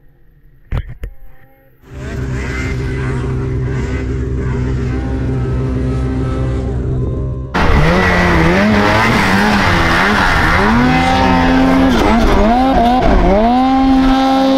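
A short knock, then a snowmobile engine running steadily. About halfway it turns louder and revs up and down over and over, its pitch rising and falling, and settles into a long high rev near the end.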